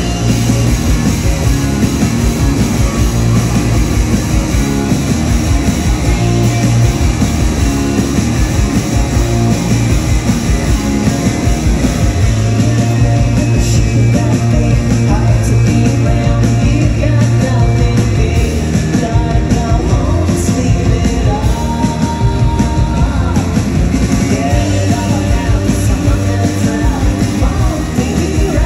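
Live rock band playing loud: electric guitars and drums, with a voice singing.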